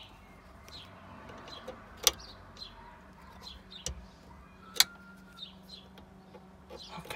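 Two sharp clicks a few seconds apart, from a tool working the car amplifier's screw terminals. Small birds chirp repeatedly in the background.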